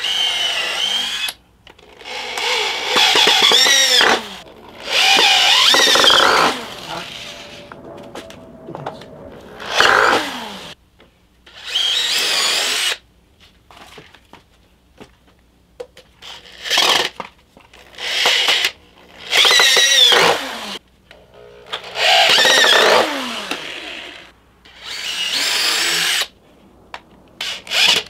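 Power drills boring into stacked wooden planks in about ten short bursts of one to two seconds each. The pitch of the motor whine rises and falls within the bursts.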